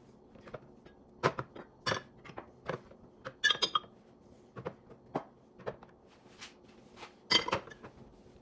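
Scattered light knocks and clicks of items handled while cleaning out a fridge, about a dozen separate sharp taps with a small cluster about three and a half seconds in and the loudest knock near the end.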